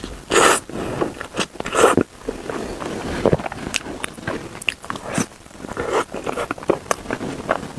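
Close-miked eating: a person biting into bread and chewing, with irregular crackles and sharp mouth clicks. Two louder bites come about half a second and two seconds in.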